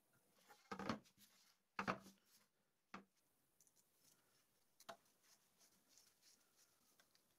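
Faint handling noise: a screwdriver and small parts clicking and knocking against an aluminium extrusion frame, with two louder knocks about one and two seconds in and a few lighter ticks after.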